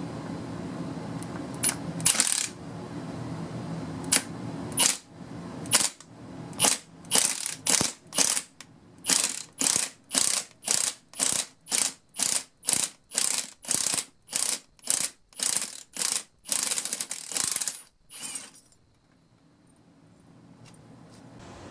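Milwaukee M18 Fuel 2763-20 cordless impact wrench hammering in short trigger bursts on a two-jaw puller's forcing screw, pulling a tack-welded wheel bearing race off the hub. A few spaced bursts at first, then a steady run of about two a second, one longer burst near the end, then it stops.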